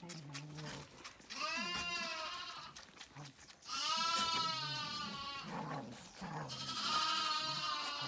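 Zwartbles lambs bleating: three high, wavering bleats of about a second each, one after another.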